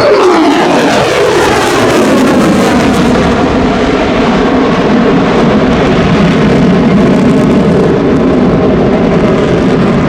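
F-35A Lightning II's F135 turbofan jet engine passing by: its pitch drops steeply as the jet goes past in the first two seconds, then loud, steady jet noise as it flies away.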